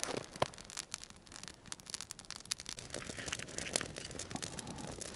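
Knife blade cutting open the metal lid of a tin can: short scraping, rasping strokes with scattered sharp clicks.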